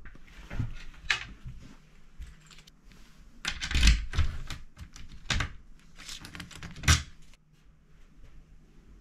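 Clicks and knocks from handling a wire clothes hanger and the wooden wardrobe it hangs in: an irregular run of clatter, loudest in a cluster about four seconds in and in a single knock near seven seconds.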